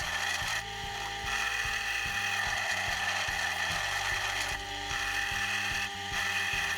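Drill press spinning a plastic router handle while a file rasps off excess welded plastic, the rasping breaking off briefly a few times as the file is lifted, over the steady hum of the drill press.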